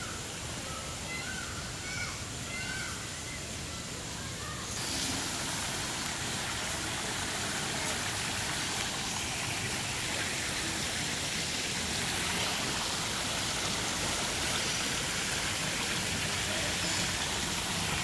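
Steady rushing and splashing of water from a small fountain spout and trickles over the rocks of an artificial pool, starting abruptly about five seconds in. Before that, a few short bird calls sound from the aviary.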